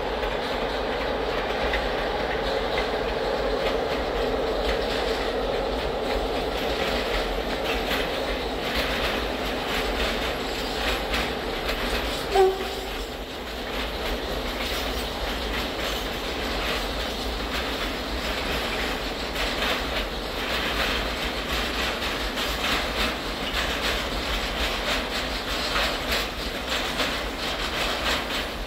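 Intermodal freight train hauled by class 060-EA electric locomotives passing, a hum in the first half giving way to the wagons' wheels clicking over the rail joints. A brief loud tone sounds about twelve seconds in.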